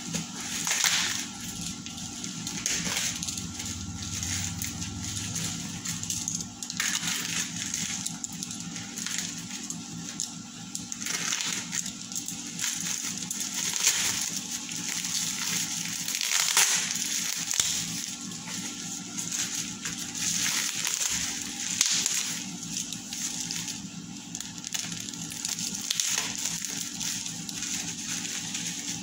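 Black plastic bubble-wrap packaging crinkling, rustling and tearing in irregular spells as a parcel is cut and pulled open, over a faint steady hum.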